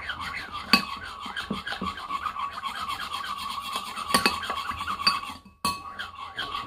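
Metal spoon stirring thick slime in a bowl: rapid scraping strokes against the bowl with a few sharper clinks, pausing briefly near the end.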